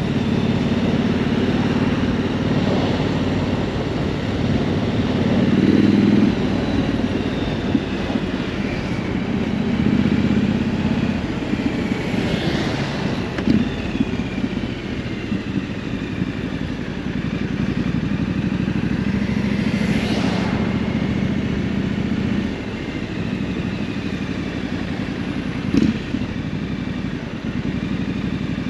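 Triumph Scrambler 900's parallel-twin engine running as the motorcycle is ridden, its note rising and easing every few seconds with changes of throttle and speed, with a couple of brief knocks.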